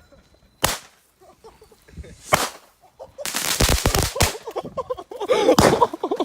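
Firecrackers going off: two single sharp bangs about a second and a half apart, then a rapid string of pops crackling for about a second, and another burst of pops near the end.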